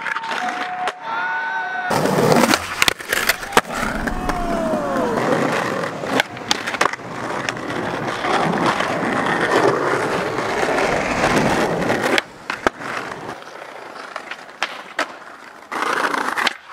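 Skateboard wheels rolling over rough paving and stone ledges, with sharp clacks of the board popping and landing and the scrape of trucks along a ledge.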